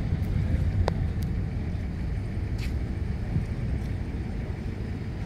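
Jet engines of a departing Air Force aircraft at take-off power, heard as a distant low rumble that slowly fades as the plane lifts off and moves away. A couple of short clicks come about a second in.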